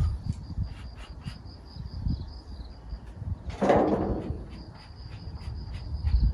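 Insects trilling steadily at a high pitch. A sudden burst of noise about three and a half seconds in fades over half a second, over low rumble and scattered clicks.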